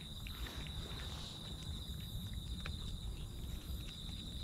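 Crickets trilling steadily at a high pitch, over a low rumble, with a few soft clicks.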